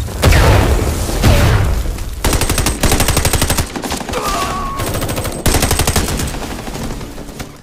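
Automatic rifle fire in a film gunfight: heavy shots, then two long rapid bursts of about a second and a half each, the second about halfway through.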